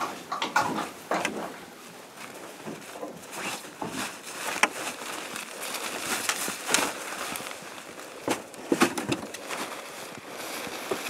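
Rustling fabric and irregular sharp clicks as a cover is pulled off an old Safari snowmobile, its engine not yet running.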